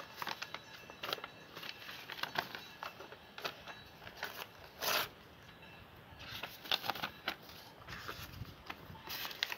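Lined notepad paper being handled and torn, rustling and crackling in short irregular bursts, with a louder rip about five seconds in.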